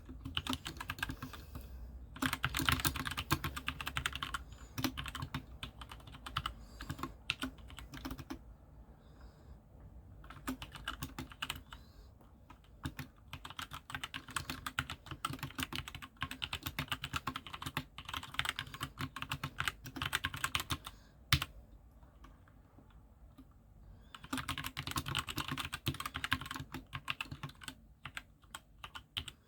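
Fast typing on an SK61 60% mechanical keyboard with Gateron optical brown switches: a steady clatter of keystrokes in bursts. There are short lulls about nine and twenty-two seconds in, and one sharper, louder clack just after twenty-one seconds.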